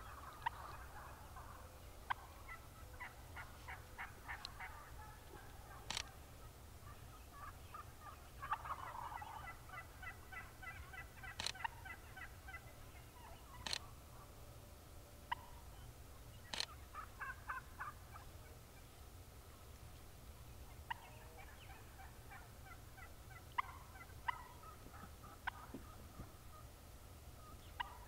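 Wild turkeys gobbling, faint and repeated, their rapid rattling calls coming back several times. A few sharp clicks stand out above them.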